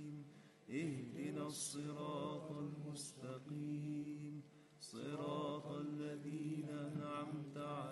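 Male vocal ensemble singing a qasidah in chant style over a low held drone note. The phrases break briefly about half a second in and again just before the five-second mark.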